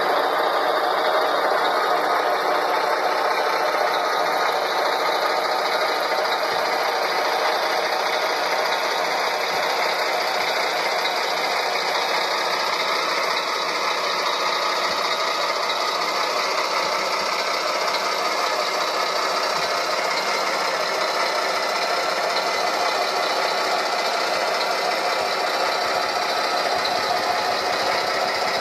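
Radio-controlled model construction machines running, a mining dump truck driving and manoeuvring: a steady mechanical whirring rattle with no deep bass.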